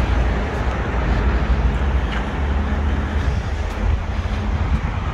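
Road traffic on a busy street: a steady low rumble of passing vehicles.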